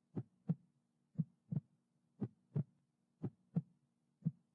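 Heartbeat sound effect: paired lub-dub thumps, about one pair a second, over a faint low hum.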